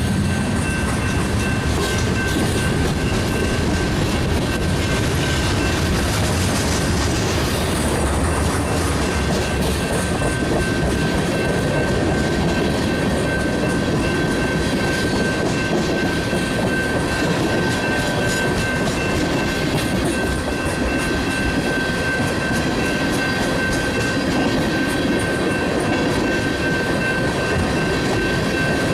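Freight cars of a long manifest train rolling past, wheels clicking steadily over the rail joints, with a steady high ringing tone running under the rumble.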